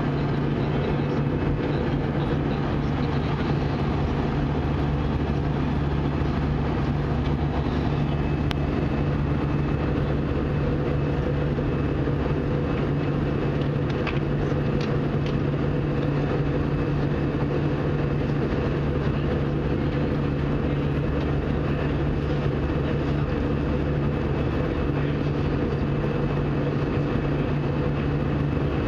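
Steady drone inside an Airbus A320 passenger cabin in flight: engine and airflow noise with a constant low hum.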